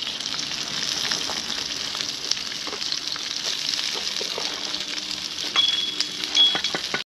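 Almonds, cashews, raisins and pistachios frying in hot ghee: a steady sizzle full of small crackling pops, with a few louder knocks from the pan near the end.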